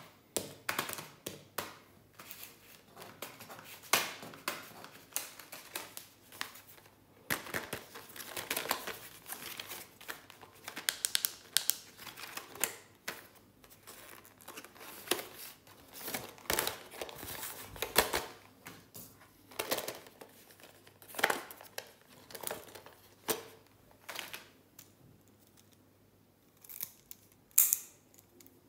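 Hands handling and opening plastic blister packs of stationery: crinkling and crackling plastic with irregular sharp clicks and taps.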